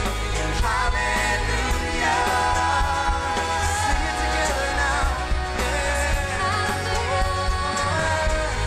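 Contemporary worship band playing a song, with a lead singer over drums, acoustic guitar and a strong, steady bass.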